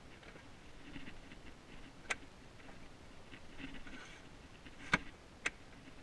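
Child car seat being handled and shifted on a car's back seat: faint rustling and scraping, with three sharp clicks, one about two seconds in and two close together near the end.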